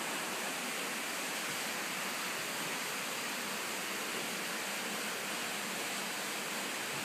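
A steady, even rushing hiss, with no breaks or changes, like running water or an air blower.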